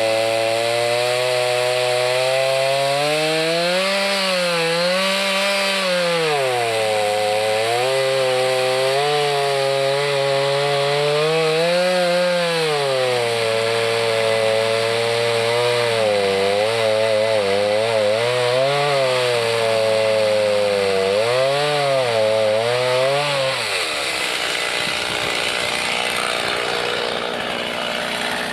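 Chainsaw engine running hard while cutting wood, its pitch repeatedly dipping and recovering as the chain bites and comes free. About three quarters of the way through the engine tone drops away, leaving a steady rushing noise.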